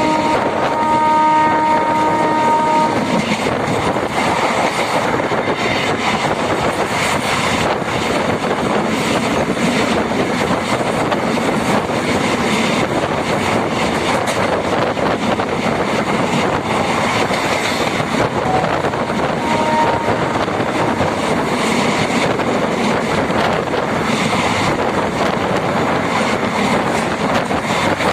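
MEMU electric train sounding its horn, a steady multi-note chord, for about the first three seconds, then the steady noise of the train running along the track. The horn gives a short toot again about two-thirds of the way through.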